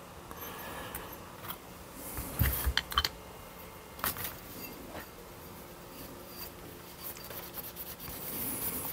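Small metal carburettor parts being handled and fitted on a workbench: a few short, sharp clicks and light scrapes, spaced irregularly.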